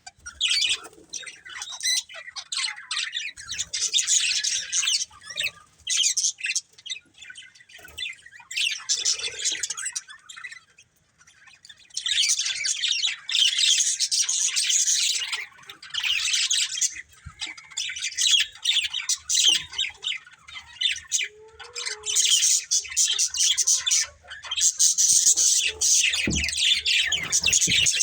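Budgerigars chattering and chirping in rapid bursts of harsh, squawky warbles, with brief lulls about a third of the way in.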